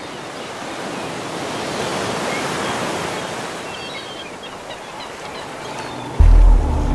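Ocean surf breaking, a steady hiss of waves that swells and eases, with a few faint high chirps in the middle. Near the end a boat motor cuts in suddenly, louder than the surf.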